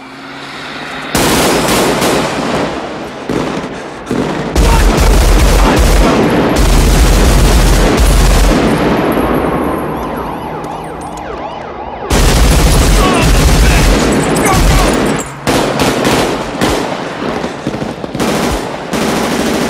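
Sustained bursts of automatic rifle fire, shot after shot with almost no gap, starting about a second in. The firing eases around the middle, with the echoes dying away, then a second heavy burst comes, followed by scattered single shots.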